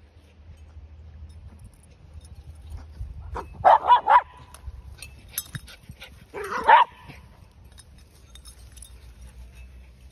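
A dog barking in play: three quick barks about three and a half seconds in, then a single bark near seven seconds.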